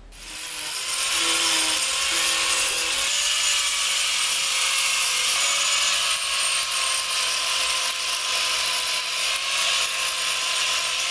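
A power tool working wood for a carving, running steadily with a high hiss and a steady whine. It builds up over the first second.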